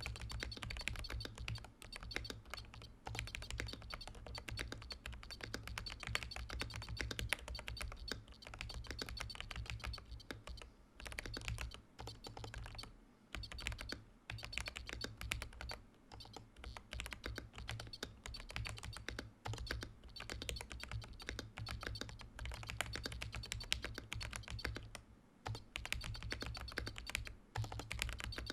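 Steady fast typing on a Command 65 mechanical keyboard with tactile Holy Panda X switches in a POM plate and Domikey keycaps, with brief pauses. A short high beep from the keyboard's built-in buzzer comes with the keystrokes.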